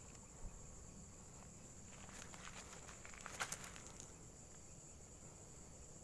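Insects droning steadily at one high pitch, with a short patch of rustling clicks about two to four seconds in, the sharpest click about three and a half seconds in.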